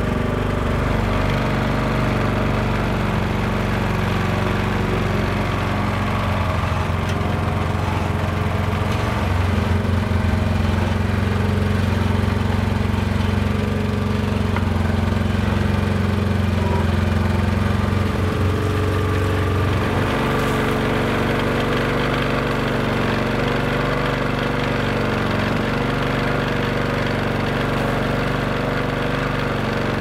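Fishing boat's engine running steadily, its note changing slightly about two-thirds of the way through.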